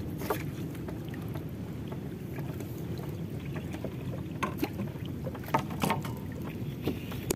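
Steady low wind and water noise around a small wooden boat on open water, with a few light knocks and clicks against the hull.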